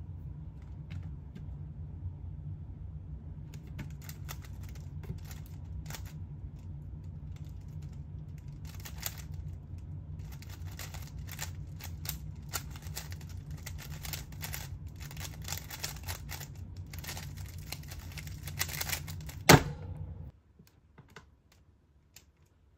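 3x3 speedcube being turned rapidly by hand: a dense, fast clatter of plastic clicks from about four seconds in. It ends about twenty seconds in with one loud knock as the solve finishes.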